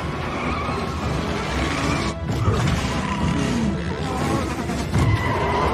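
Action-film score playing over chase sound effects, with crashing metal hits as a sports car grinds against an armoured truck, one about two and a half seconds in and another near five seconds.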